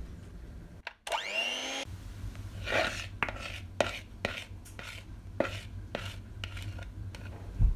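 An electric hand mixer briefly whines up to speed about a second in. Then a spatula scrapes and taps against a bowl while thick cream cheese filling is scraped out, over a low steady hum.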